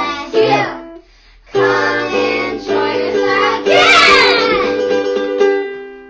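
Children singing a short blessing song to strummed ukulele, in two phrases with a short break about a second in. A brief hiss sounds about four seconds in, and the last note is held and fades out at the end.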